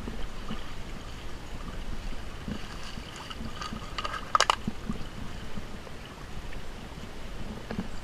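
Small brook trickling and running over a rock step. About four seconds in, a quick run of sharp clicks ends in a louder snap.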